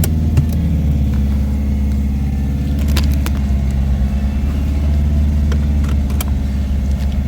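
A car engine running steadily, heard from inside the cabin, with a few sharp clicks.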